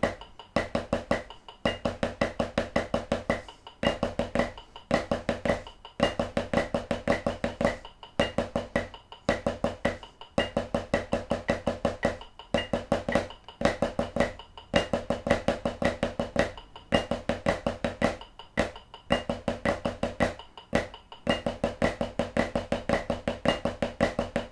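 Snare drum played with sticks, running Swiss Army triplets, a flam-based triplet rudiment, at quarter note = 110. Quick, even strokes come in phrases broken by short breaks about every two seconds.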